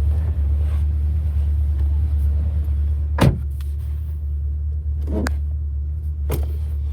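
Holden VE Commodore SSV's 6.0-litre V8 idling with a steady low rumble. A few short knocks or clicks sound over it, the loudest a little over three seconds in.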